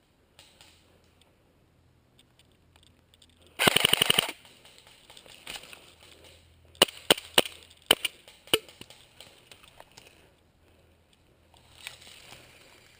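Airsoft gun firing a short full-auto burst of about a dozen rapid shots in under a second, followed a few seconds later by five single shots spaced a quarter to half a second apart.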